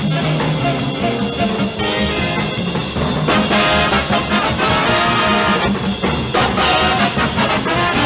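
Big band swing jazz: the brass and saxophone sections play together over drums, with loud full-band swells around the middle and again near the end.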